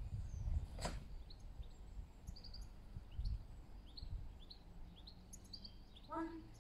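Small birds chirping in short, high calls over a low rumble. There is one sharp snap about a second in and a brief pitched call near the end.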